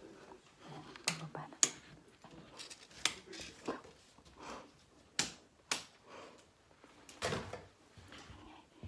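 Six or so sharp clicks and knocks at irregular intervals, like small hard objects being handled or set down.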